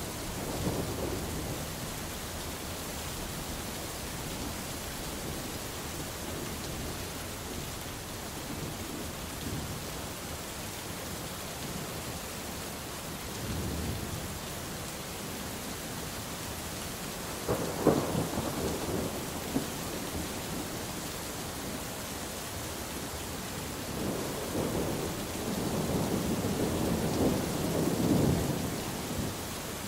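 Steady rain hissing, with thunder: a sharp crack and rumble a little past halfway, and a longer rolling rumble near the end.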